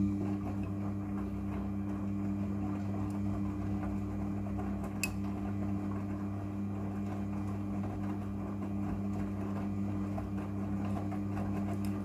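Midea front-loading washing machine in its wash cycle, the drum tumbling a load of clothes: a steady low motor hum under the irregular swish of the tumbling load, with a single sharp click about five seconds in.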